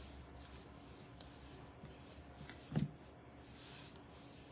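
Faint brushing as a paintbrush strokes paint onto a picture frame, with one short low sound about three seconds in.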